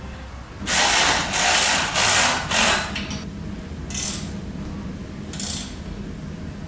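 Ratchet wrench clicking in quick strokes as the underbody bolts are tightened after fitting a muffler: a loud run of about two seconds, then two shorter, fainter runs.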